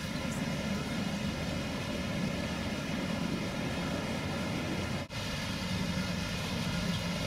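Steady engine drone with a faint even hum, briefly breaking off about five seconds in.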